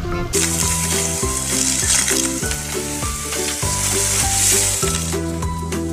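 Background music with a repeating bass line, overlaid from about a third of a second in by a steady hiss of noise.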